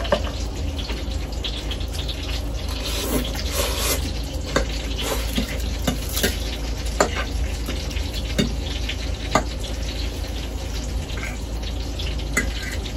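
Eating at the table: forks clicking and scraping on a plate of spaghetti, with chewing and slurping, over a low steady hum.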